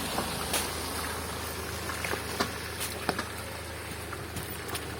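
Range Rover Evoque moving slowly with its engine running as a steady low hum, and scattered irregular knocks from the wobbling front-left wheel. The mechanic traces the knocking mainly to a worn anti-roll bar link with play, plus a tyre worn down to the cord.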